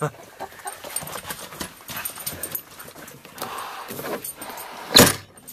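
A dog panting on a school bus seat, then a loud thump about five seconds in as the bus's roof emergency hatch is pushed open.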